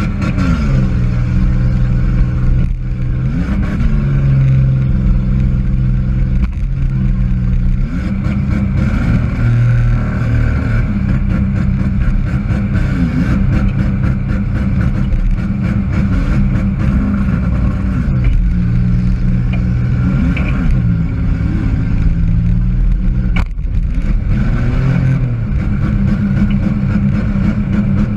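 Demolition derby car's engine revving up and falling back over and over, heard from inside the car, with a few sharp thumps along the way.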